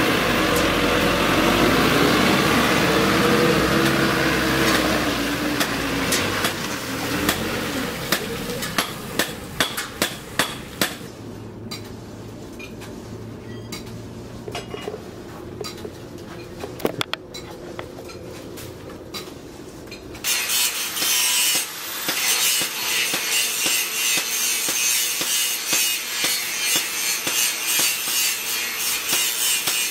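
A truck engine runs for the first few seconds. Sharp metallic clinks and knocks follow as the rusty leaf-spring steel is handled over a charcoal forge. About twenty seconds in, a steady rushing, scraping noise starts as the coals are raked and the fire is fanned up.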